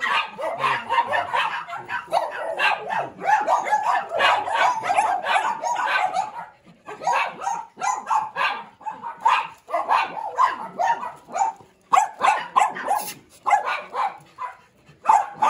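Several small dogs barking rapidly and repeatedly, the barks crowding over one another, with short lulls about seven and twelve seconds in.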